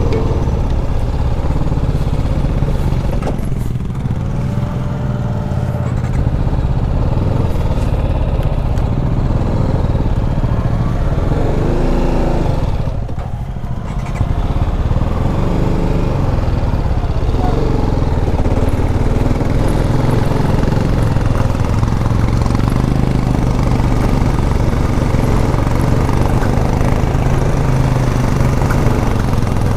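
TVS Apache RR310's single-cylinder engine running under light throttle as the bike rolls over a rough dirt track. Road and wind noise mix with it. About halfway through, the engine briefly drops off and quietens before picking up again.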